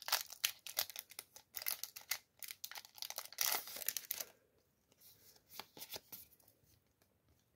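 Foil wrapper of a Yu-Gi-Oh! booster pack crinkling and tearing as it is pulled open by hand, a dense run of crackles for about four seconds. A few faint rustles of the cards being drawn out follow.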